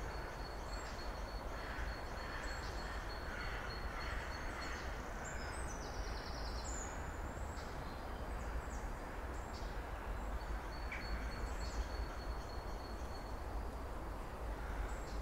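Winter woodland ambience: small birds calling with high, thin notes and short chirps, over a steady low rumble and hiss.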